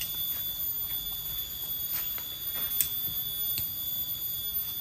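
Steady, high-pitched drone of forest insects, several pure tones held at once, with scattered light clicks and knocks, the sharpest a little before three seconds in.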